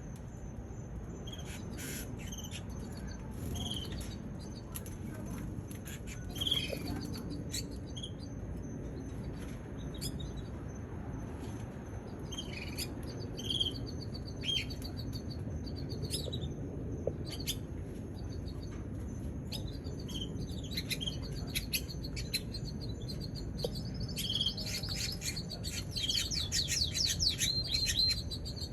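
Canary giving short, high chirps every second or so, then breaking into a fast, dense trilling song near the end, over a steady low hum.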